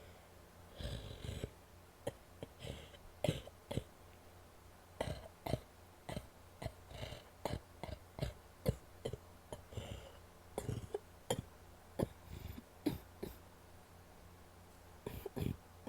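A woman coughing wet, phlegmy coughs: a long series of short, sharp coughs with brief gaps between them.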